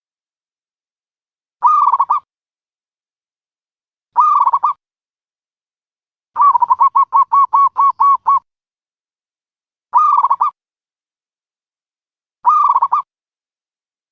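Dove calling in short, clipped coos about every two and a half seconds. Near the middle comes a quicker run of about ten rapid notes lasting two seconds. The same call repeats with dead silence between, as in a looped recording played as a trapping lure.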